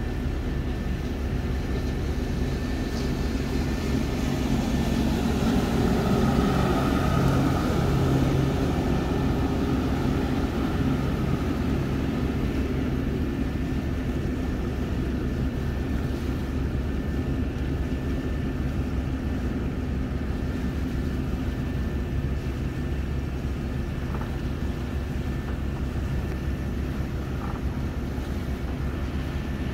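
Marine engine running steadily: a low drone with a thin, steady high whine over it, swelling a little about six to nine seconds in.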